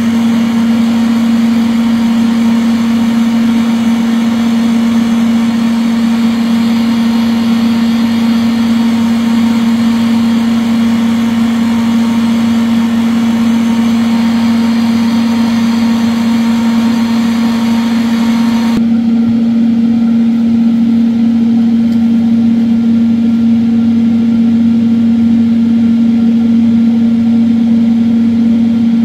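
A small machine's motor running with a steady, loud hum. A higher hiss over it cuts off suddenly about two-thirds of the way through while the hum keeps going.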